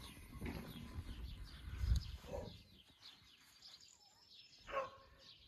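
Small birds chirping, many quick short chirps, over a low rumble on the microphone during the first two seconds. One louder short call stands out near the end.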